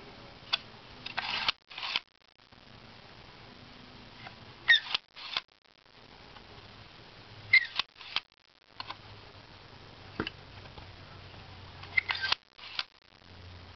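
Vintage 1940s View-Master stereo viewer's advance lever being pressed and released, each stroke a quick cluster of sharp plastic clicks as the reel turns to the next picture. This happens four times, about every three to four seconds.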